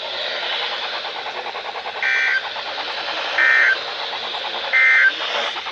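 Three short EAS/SAME digital data bursts on NOAA Weather Radio, each a brief buzzy two-tone warble, about a second and a half apart. They are the End of Message code that closes the weekly test alert. Steady radio hiss runs underneath.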